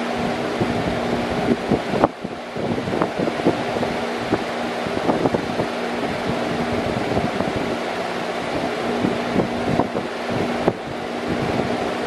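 Large metal-bladed electric fan behind a chrome wire grille, running steadily: an even rush of air over a steady low hum. Irregular short thumps and crackles come through the rush, and the sound dips briefly twice.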